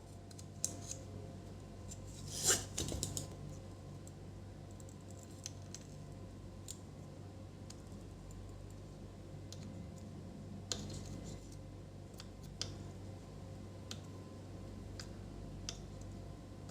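Scattered small clicks and taps of tools and parts being handled on a workbench, the loudest a short cluster about two and a half seconds in, over a faint steady hum.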